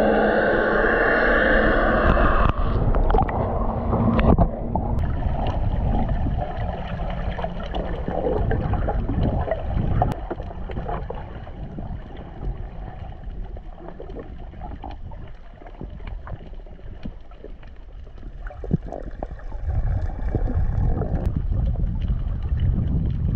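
Underwater sound picked up by a camera below the surface: a muffled rumble with gurgling and scattered clicks. A loud, steady hum runs through the first four seconds or so, after which it is quieter.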